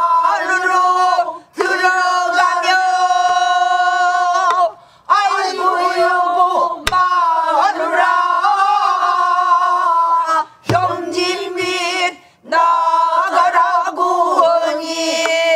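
A group of men and women singing pansori in unison, long held notes that waver, in phrases separated by short breath pauses. A few sharp strokes, likely on a buk barrel drum, fall between phrases.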